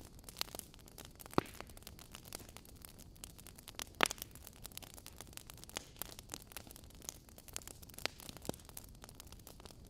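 Wood fire in a fireplace crackling: irregular sharp pops and snaps over a faint steady hiss of burning logs, with the loudest pops about a second and a half in and about four seconds in.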